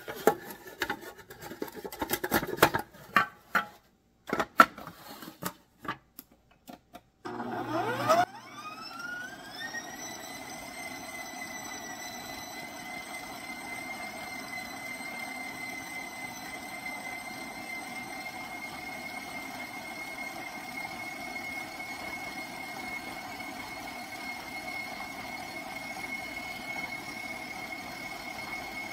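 Clear plastic pouring shield knocking and clicking as it is fitted onto a KitchenAid stand mixer's steel bowl. About seven seconds in, the mixer's motor starts with a whine that rises as it spins up, then runs steadily while the flat beater mixes stiff cookie dough.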